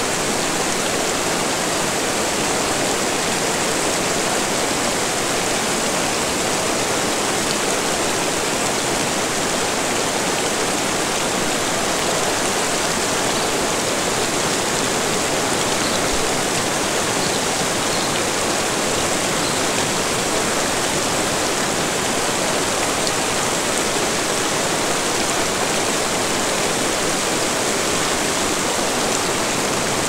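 Waterfall: water pouring over rock ledges in a steady, unchanging rush.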